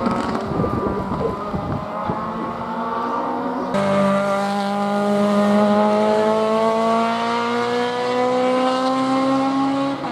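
Race car engine at speed on the circuit. It eases off with a rough, crackly stretch in the first two seconds, then after an abrupt cut it pulls hard, its pitch climbing steadily through a long acceleration, and drops back near the end.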